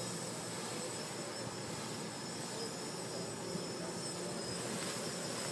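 Hexacopter's electric motors and propellers running with a steady buzz as it flies low.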